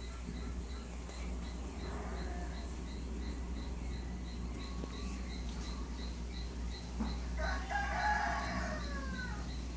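A rooster crowing once, about two seconds long, starting about seven seconds in and falling in pitch at the end. Under it, a steady high chirping repeats about three times a second, like an insect.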